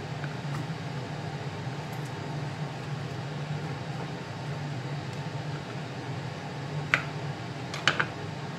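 A steady low hum, with two or three sharp clicks near the end as a kitchen knife knocks against a plastic cutting board.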